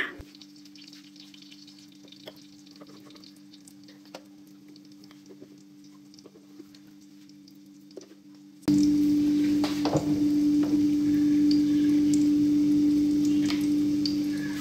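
Electric roti maker, first a faint steady hum with a few light ticks, then, about nine seconds in, a sudden loud sizzling hiss over a steady droning tone.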